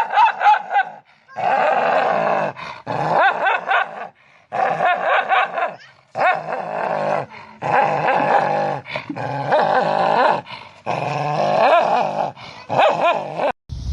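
A dog vocalizing in a long run of drawn-out whines and grumbling growls, its pitch bending up and down, in stretches of a second or two with short breaks between.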